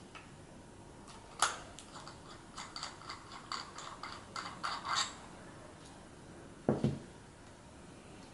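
Small wrench working the nut on an Apeks XTX50 regulator second stage: one sharp click, then an irregular run of light metal clicks and taps over a few seconds. A dull thump follows near the end.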